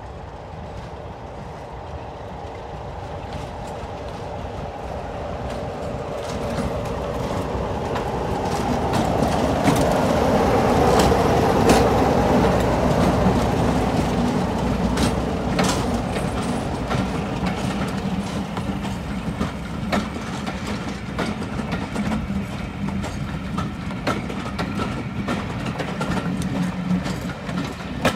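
British Rail Class 33 diesel locomotive and its train approaching and passing, the engine growing louder to a peak about eleven seconds in. After that the coaches roll by with rhythmic clicks of the wheels over the rail joints.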